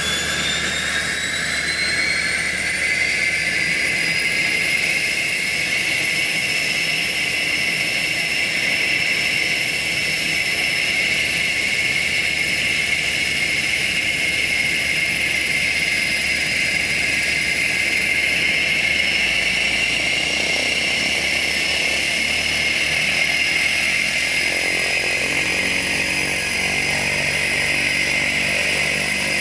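Cessna 208 Grand Caravan's Pratt & Whitney PT6A turboprop running on the ground, a high turbine whine that rises in pitch over the first couple of seconds and then holds steady.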